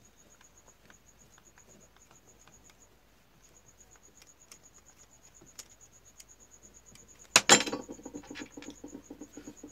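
Faint ticks of a screwdriver backing out the small gear-housing screws of an angle grinder, then a loud clatter about seven and a half seconds in as the metal screwdriver is put down on the bench, with a short ringing after. Crickets chirp steadily in the background.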